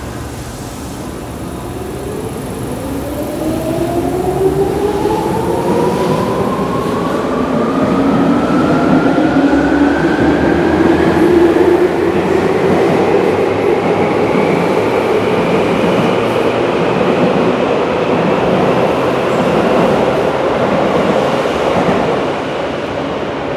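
Tokyu 8500 series electric train accelerating away, its traction motors and gears whining in several tones that rise steadily in pitch over about twenty seconds as it gathers speed, over the running noise of the train.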